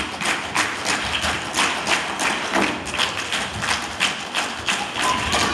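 A troupe of dancers tapping and stomping on the stage floor in unison, sharp strikes about three a second, over music.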